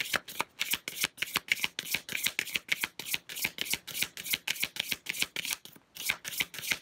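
A deck of tarot cards shuffled by hand: quick, even riffling strokes, about five a second, with a short break near the end.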